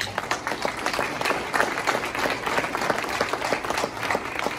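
Audience applauding, breaking out all at once.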